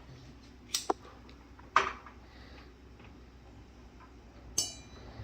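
A few light clicks and taps of household objects being handled: two about a second in, another just before two seconds, and a sharper click with a brief ringing tone near the end.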